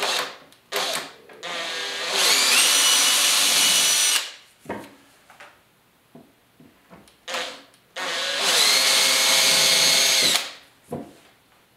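Makita 18-volt cordless drill boring into an epoxy-and-fiberglass patch in particle board. It starts with a few short trigger pulses, then runs twice for about two seconds each, its motor whine rising in pitch as it spins up and then holding steady.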